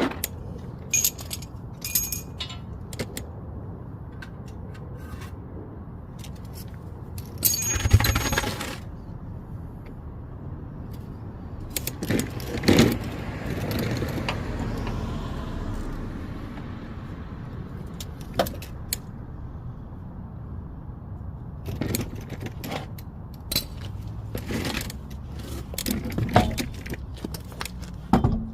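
Metal tools and lug nuts clinking and clattering, with scattered sharp knocks and a louder clatter about 8 seconds in, as a car's front wheel is refitted.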